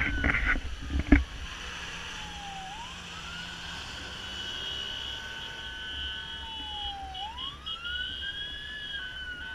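Fire engine's wail siren, its pitch slowly rising and falling about every four to five seconds. A few loud knocks come in the first second.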